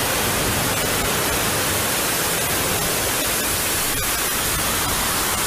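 Steady rushing noise of deep floodwater churned up as a car drives through it.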